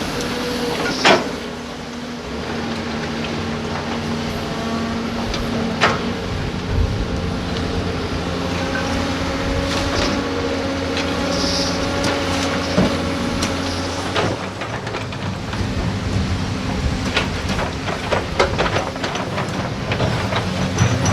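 Heavy excavator's diesel engine running steadily, with sharp clanks and knocks every few seconds.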